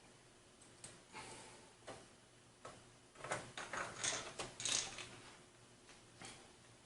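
Screwdriver driving motherboard screws into the case's standoffs: scattered faint metal clicks and scrapes, busiest about halfway through.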